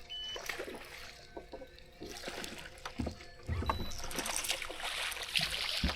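A hooked bass being fought and landed: scattered clicks and knocks of tackle and handling, with low thumps about three and three and a half seconds in and a splashing hiss in the second half.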